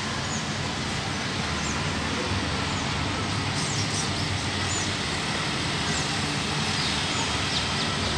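Steady background traffic rumble, with a few faint high chirps in the middle and again near the end.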